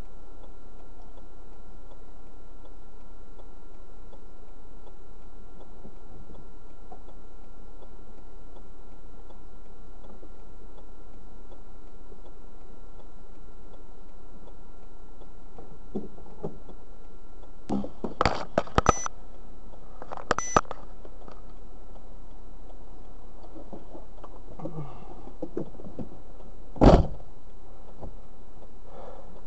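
Car door being worked: sharp latch and handle clicks and knocks, then the door shutting with a heavy thump near the end, over a steady hum and hiss.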